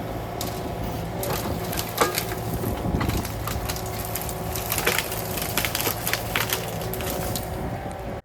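Excavator engine running steadily while the machine works, with repeated sharp cracks and knocks over it, the loudest about two seconds in. The sound cuts off suddenly at the end.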